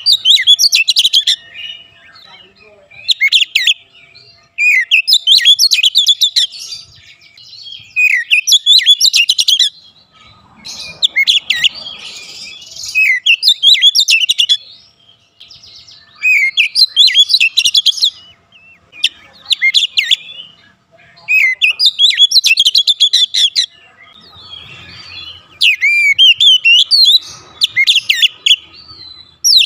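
Caged Oriental magpie-robin singing: loud phrases of rapid, varied whistled notes, one to three seconds long, coming again and again after short pauses.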